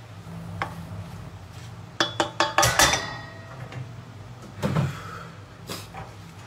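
Kitchen tongs knocking and clinking against a metal frying pan while serving noodles: a quick run of clinks with a short metallic ring about two seconds in, then a couple of single knocks.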